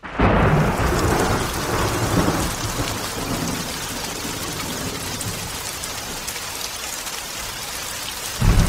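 Thunderstorm: steady heavy rain that starts suddenly, with a rumble of thunder in the first couple of seconds, its loudest part, and another near the end.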